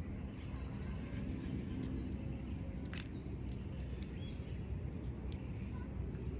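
Outdoor park ambience: a steady low rumble with a few faint chirps, and one sharp click about three seconds in.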